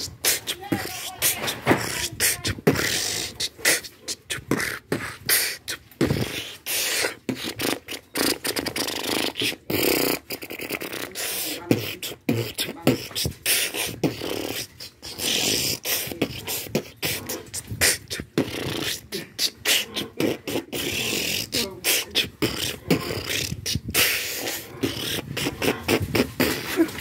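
A person beatboxing: a fast, unbroken string of sharp mouth-made drum hits.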